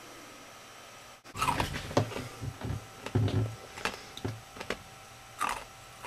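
Ice cubes being chewed: a run of irregular crunches and cracks in the mouth, beginning about a second in.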